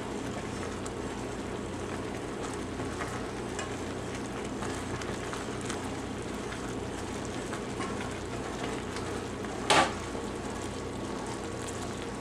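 Chocolate sugar-and-cocoa mixture at a rolling boil in a saucepan, bubbling and sizzling steadily while a wooden spoon stirs it with small scraping clicks. A single sharp knock about ten seconds in.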